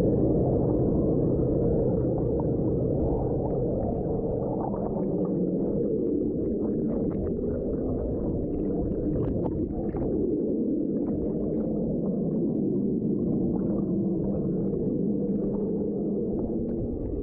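Jets of an MR2002 hot tub running, heard from underwater: a steady, muffled rushing rumble of water and air, with scattered faint pops of bubbles.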